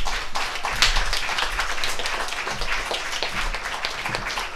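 Live audience applauding, many hands clapping at once, easing off slightly toward the end.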